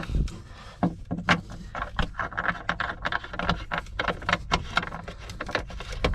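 Irregular clicks, knocks and rattles with some scraping, from hands working down in a boat's hull to fit the drain plug.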